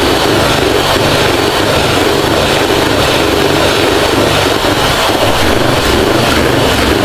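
Electric hand mixer running steadily at high speed, its beaters whipping chilled cream in a bowl.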